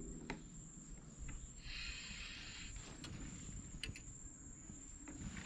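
Quiet open-air river ambience: a thin, steady high whine runs throughout, with a brief hiss about two seconds in, a few light clicks and a low rumble underneath.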